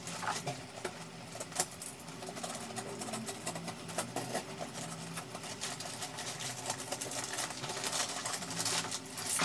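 Paper and tape wrapping of a parcel being worked open by hand: faint, irregular crinkling, clicks and small tearing sounds.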